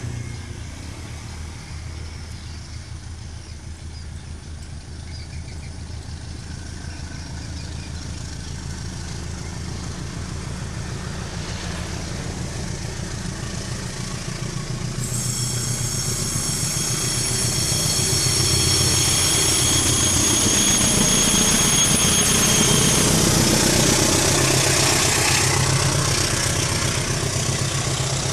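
A diesel-electric locomotive, the GE-built CC 201, running with a steady low engine hum. It grows louder as the train approaches and passes, peaks past the middle, then eases off. Several high, steady ringing tones join for about eight seconds around the loudest part.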